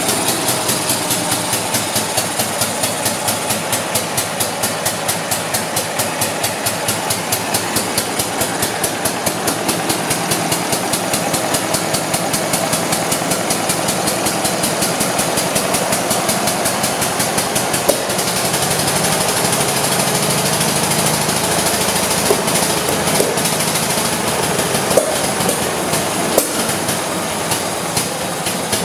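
Daimler-Motoren-Gesellschaft LS944A four-cylinder stationary engine running steadily, its open valve gear clattering in an even, rapid beat. It gets slightly louder about two-thirds of the way through, and a few sharp clicks sound near the end.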